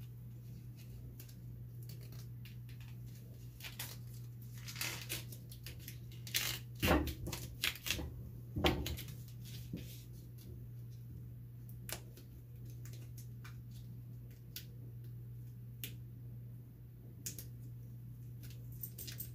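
Duct tape being worked around an axe head by hand: crinkling and crackling of the tape as it is pulled and pressed down, with a few louder knocks about a third of the way in.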